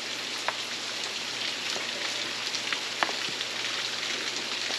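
Running water: a steady hiss with a few scattered small clicks.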